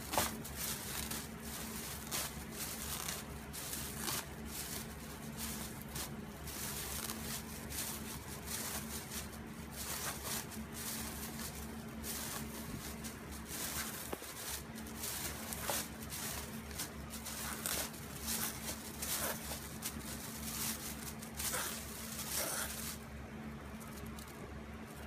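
Thin plastic grocery bag crinkling and crackling in irregular bursts as a cat chews and licks it, dying down near the end. A steady low hum runs underneath.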